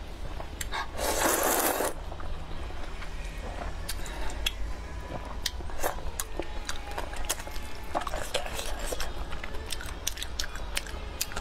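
A loud slurp of rice noodles from spicy soup about a second in, then close-up chewing with many short wet mouth clicks.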